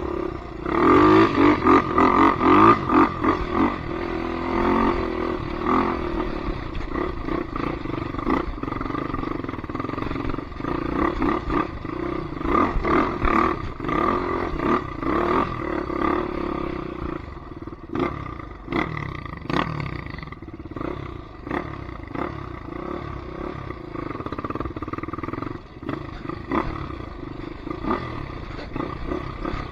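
Polaris Predator 500 ATV's single-cylinder four-stroke engine running and revving, its pitch rising and falling with the throttle. It revs hardest in the first few seconds, and a few sharp knocks come around two-thirds of the way through.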